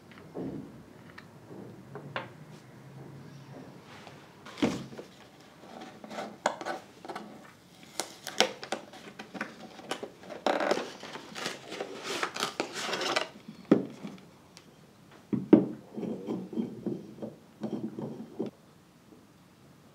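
Hands unpacking a cosmetic bottle from a cardboard box on a wooden table: rustling of the packaging with scattered taps and knocks, and a denser spell of rustling about halfway through. Near the end come smaller clicks as the bottle's cap is twisted.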